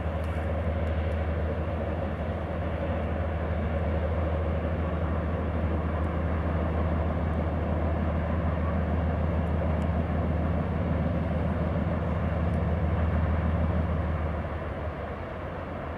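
Distant freight train passing: a steady low drone of diesel-electric locomotives with the rumble of rolling cars, dropping away about a second and a half before the end.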